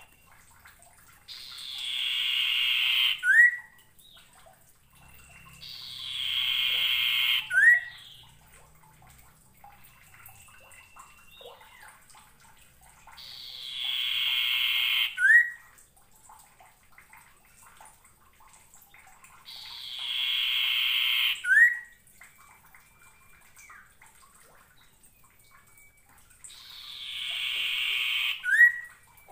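Common iora (sirtu) singing its buzzy call five times, about every six seconds. Each call is a trill about two seconds long that swells in loudness and ends in a short, sharp upward note, the loudest part. Faint thin whistles come between the calls.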